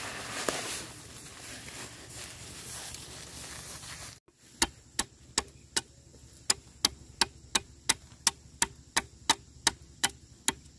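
Rustling of a woven plastic sack as hands dig into the seed grain inside. About four seconds in, a machete starts chopping at the end of a green bamboo pole on a wooden stump: sharp, even strikes, about three a second.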